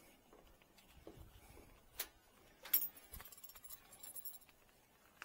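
Metal fittings of a refrigerant manifold gauge set and its hoses clicking and clinking as they are handled: a sharp click about two seconds in, then a louder metallic clink with a brief high ringing and a run of light ticks.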